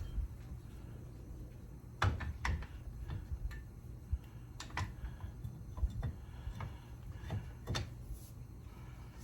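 Scattered sharp clicks and knocks of hand work on a motorcycle wheel and tire, loudest about two seconds in and again about six seconds in, over a steady low hum.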